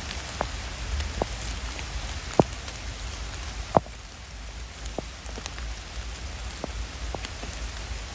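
Rain falling on wet woodland undergrowth: a steady patter with scattered sharp drip taps, two of them louder, about two and a half and nearly four seconds in.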